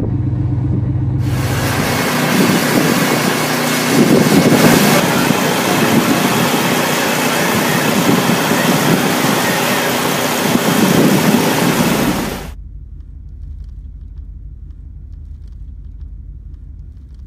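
A vehicle engine running, heard from inside the cab, then about a second in a loud, steady rushing noise that covers it and cuts off abruptly about twelve seconds in, leaving a quieter low rumble.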